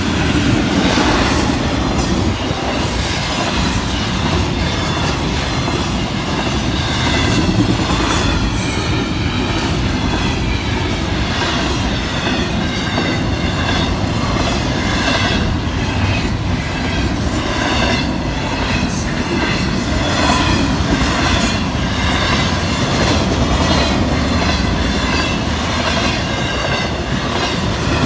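A freight train's intermodal well cars, loaded with containers and trailers, rolling past at speed: a steady, loud rumble of steel wheels on rail with repeated clacks as the wheels cross the rail joints.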